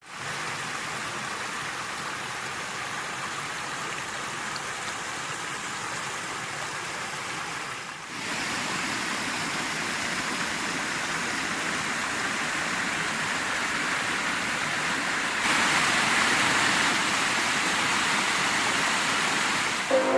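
Steady rushing of flowing water from a creek or waterfall. It changes abruptly twice, about 8 and 15 seconds in, growing a little louder each time.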